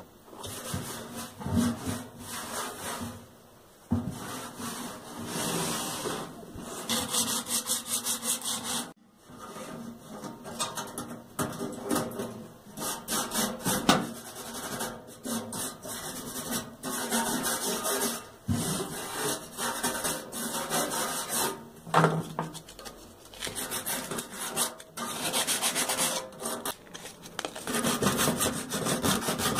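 A sponge and a toothbrush scrubbing rust spots off a painted metal bread box, in runs of quick back-and-forth strokes with short pauses between them.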